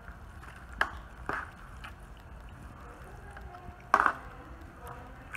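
Metal tongs tapping and scraping in a disposable aluminium foil pan while pulling apart smoked pork butt: a few sharp clicks, the loudest about four seconds in.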